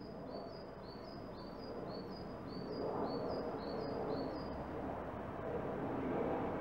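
A small songbird repeating a high two-note phrase over and over, quickly, for nearly five seconds. Under it, the rumble of a jet airliner passing overhead grows louder about halfway through.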